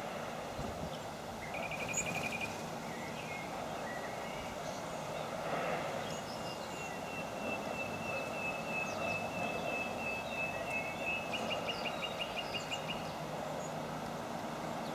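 Small songbirds calling over a steady outdoor background rush. There is a short, fast trill about two seconds in. Later comes a long, even run of high notes lasting several seconds, which speeds into a quick trill near the end.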